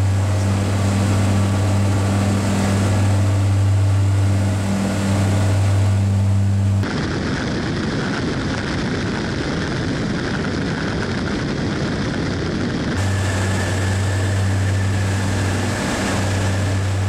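Che-29 seaplane's twin Rotax 912 engines and propellers running steadily with a low, even drone. For about six seconds in the middle the drone cuts abruptly to a rushing noise, then returns.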